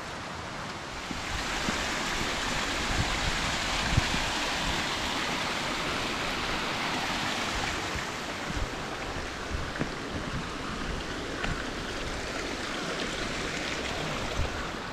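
Steady rush of flowing water from a mountain stream, swelling about a second in and easing a little after about eight seconds.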